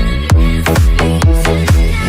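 Electronic dance music with a steady four-on-the-floor kick drum, about four beats a second.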